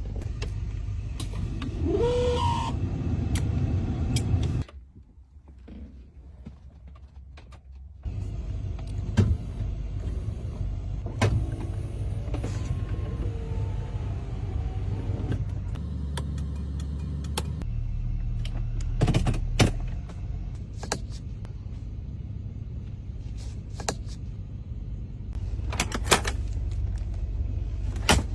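Vintage car engine running with a steady low rumble, scattered sharp clicks, and a quieter stretch from about five to eight seconds in.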